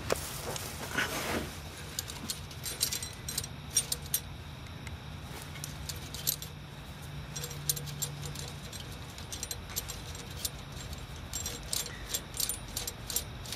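Light metallic clicks and rattles of an exhaust clamp's bolt and nut being handled and threaded on by hand around the joint of an exhaust flex pipe, in scattered irregular ticks.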